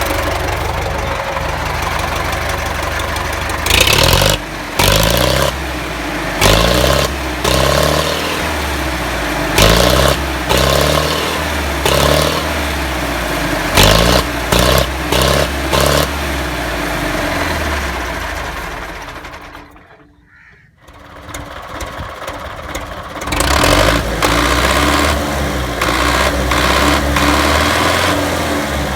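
Belarus MTZ tractor's diesel engine running, blipped in a string of short revs every second or two for the first quarter minute or so. About twenty seconds in the sound fades almost to nothing, then the engine comes back up and runs steadily.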